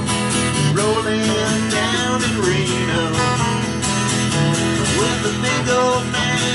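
Live acoustic country song: two acoustic guitars strummed together, with a man singing.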